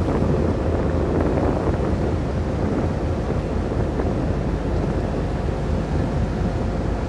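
Steady low drone of the ro-ro ferry MV Armorique's engines and machinery while berthing, with wind buffeting the microphone.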